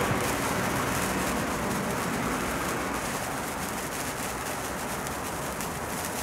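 Handheld sparkler burning, a steady fizzing hiss with fine crackles that slowly grows quieter.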